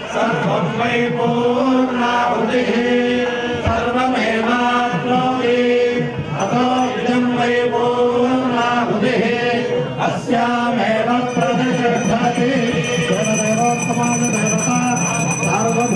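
Male priests chanting Vedic mantras together, held on a steady reciting pitch with small rises and falls. Near the end a small bell starts ringing.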